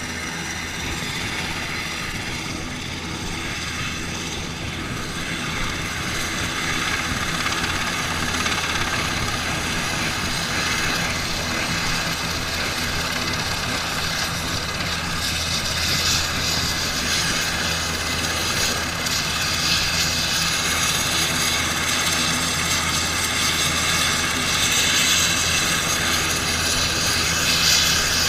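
Military transport helicopter running on the ground with its rotors turning: a steady turbine whine over the rotor noise, slowly growing louder.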